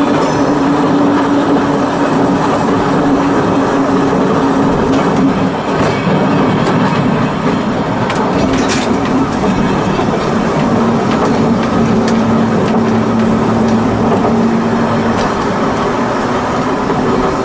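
Volk's Electric Railway car running along its track, heard from the open driving platform: rolling wheel-and-rail noise under a steady whine that drops lower for a stretch in the middle and rises again near the end. A few sharp clicks sound along the way.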